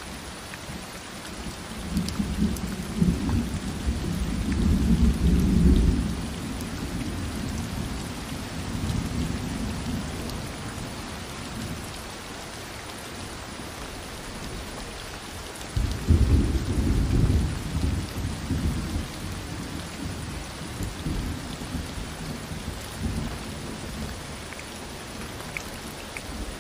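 Heavy rain falling steadily, with two long rolls of thunder rumbling low, the first starting about two seconds in and the second about sixteen seconds in.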